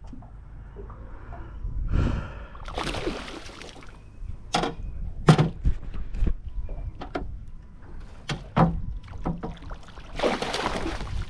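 A hooked threadfin salmon splashing at the surface beside a boat, with splashes around two to three seconds in and again near the end as the landing net goes into the water. A few sharp knocks come in between.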